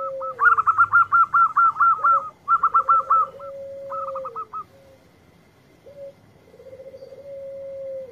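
Zebra dove cooing: bursts of fast, high staccato notes, about eight a second, over lower long rolling coos that each hold steady and then slide downward at the end. The fast high notes are the loudest part and stop about halfway through.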